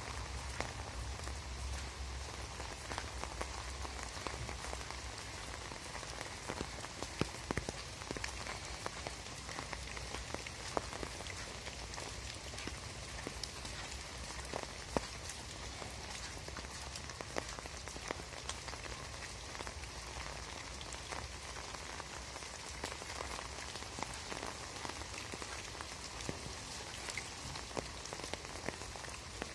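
Steady rain falling on leaves, grass and wet ground, with many individual drops ticking sharply close by.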